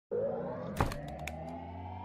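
Logo-animation sound effects: a slowly rising synth tone over a held low drone, a sharp hit just under a second in, then a quick run of four or five smaller clicks.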